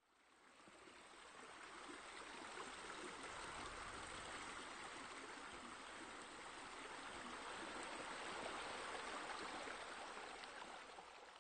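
Running water splashing steadily, fading in over the first two seconds and easing off slightly near the end.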